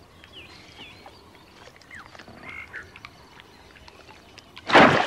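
Faint croaking and chirping calls at a muddy waterhole, then, near the end, a sudden loud splash as a crocodile lunges out of the water at a drinking impala.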